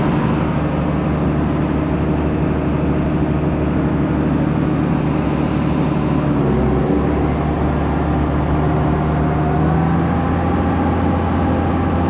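Twin-screw feed mixer started up and running steadily, driving only one of its two screws after the shaft between them was taken apart to free a corn jam. Its hum shifts in pitch slightly about six seconds in and again near ten seconds.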